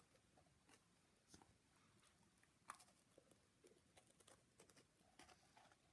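Near silence with faint, scattered clicks of a person chewing a mouthful of biscuit.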